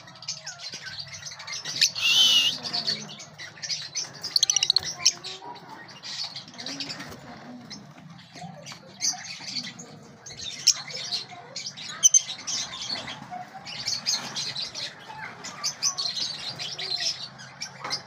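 A flock of caged lovebirds chirping and chattering, with many short, sharp, high calls throughout and a quick run of chirps about four and a half seconds in.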